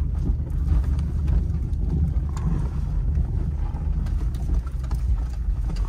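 Four-wheel-drive vehicle driving slowly over a snowy track, heard from inside the cabin: a steady low engine and road rumble with occasional light knocks.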